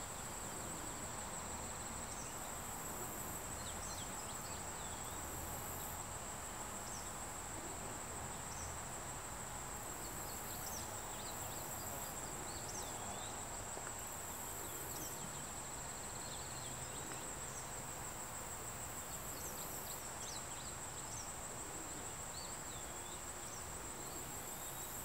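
Steady high-pitched trill of insects, with short whistled chirps scattered over it and a higher insect sound pulsing on and off every couple of seconds.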